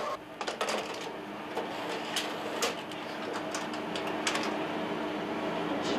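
Tape-handling machinery: a steady machine hum with scattered sharp clicks and knocks from a tape reel being handled and from videotape recorder buttons being pressed.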